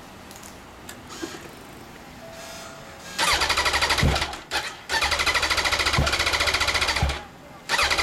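2015 Yamaha YZF-R1's electric starter cranking the engine in two bursts, the first about three seconds in and the second about five seconds in, with a brief pause between them.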